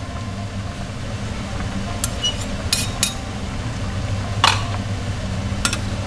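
Metal ladle stirring curry in a metal wok, clinking against the pan about five times, loudest a little after halfway, over a steady low hum.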